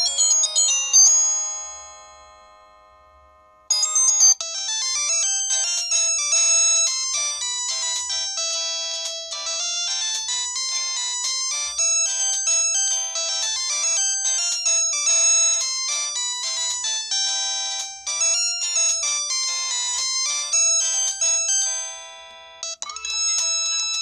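Samsung SGH-C260's built-in polyphonic ringtones previewing through the phone's small speaker, thin and without bass. One tune ends about a second in and rings away, a new melody starts about four seconds in and plays until near the end, and then another tune begins.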